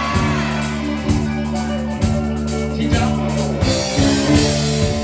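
Live rock band playing: electric bass and electric guitar holding notes over a drum kit that strikes about once a second, with a brief sung phrase at the very start and brighter cymbal-like noise about four seconds in.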